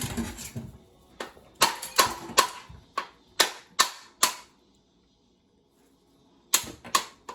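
Sharp cracks of a knife striking a coconut shell to bust it open. The blows come quickly, two or three a second, stop for about two seconds past the middle, then start again.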